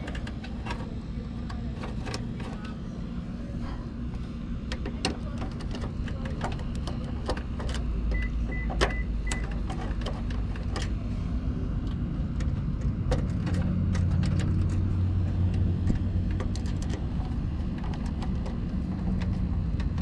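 Small clicks and taps of a screwdriver and the contactor's screws and wiring being handled as a replacement contactor is screwed into a heat pump's control panel. Under them runs a steady low rumble that grows louder about eight seconds in and again about five seconds later. A few short high beeps come about eight seconds in.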